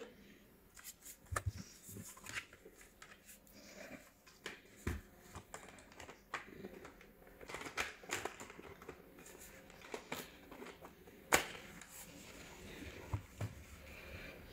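Scattered small clicks, taps and rustles of hands handling a laptop and tools on a workbench, the sharpest click about eleven seconds in.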